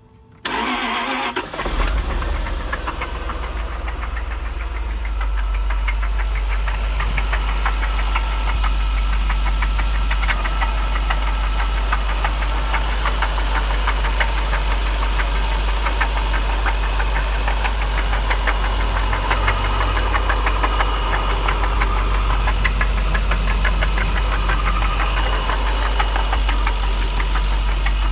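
1999 Jaguar XJR's supercharged 4.0 V8 starts about half a second in and settles into an idle with a rapid, even knocking from the engine. The owner suspects rod knock after the engine overheated; the secondary timing chain tensioners had just been replaced.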